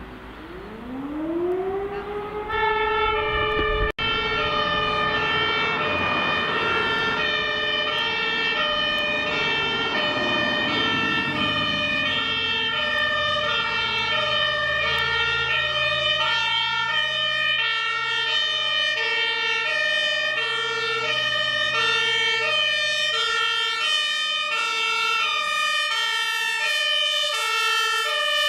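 A siren glides up in pitch over about two seconds, then a German fire engine's two-tone siren (Martinshorn) alternates between its high and low notes, switching roughly every three-quarters of a second. The truck's engine runs underneath and fades out near the end.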